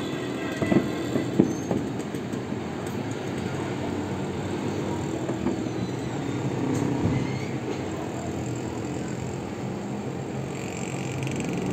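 Two sharp pops of distant aerial fireworks about a second in, over a steady low hum of city noise.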